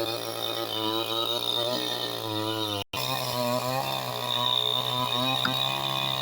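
Chainsaw running, its engine speed rising and falling as it cuts, with a brief break about three seconds in.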